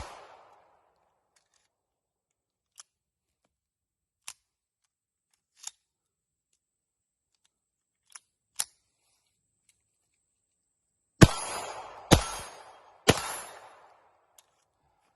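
Ruger Mark IV Target .22 LR semi-automatic pistol fired three times about a second apart near the end, each shot ringing briefly. Before that come a few faint, scattered clicks.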